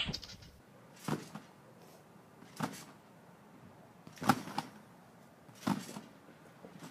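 A person bouncing on a rectangular trampoline: four landings on the mat, each a short thump, about a second and a half apart.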